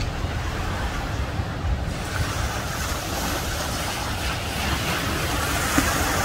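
Ocean surf breaking and washing, a steady hiss of white water that grows louder about two seconds in, with wind rumbling on the microphone.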